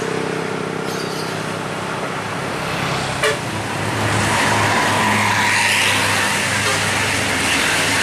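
Tour bus driving past on the road: a steady engine hum at first, then engine and tyre noise growing louder as the bus goes by, about four seconds in. A short knock sounds about three seconds in.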